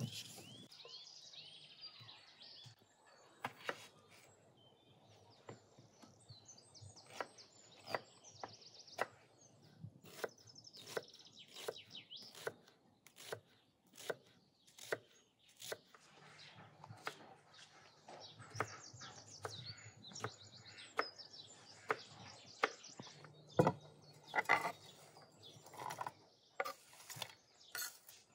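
A kitchen knife slicing onions on a wooden cutting board: a run of sharp taps as the blade meets the board, roughly one or two a second. Birds chirp throughout.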